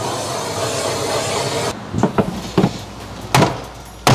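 A handheld gas torch hisses steadily while it heats a bent steel body panel. It stops at about the halfway point, and a series of sharp hammer blows follows, struck through a wooden block to straighten the panel.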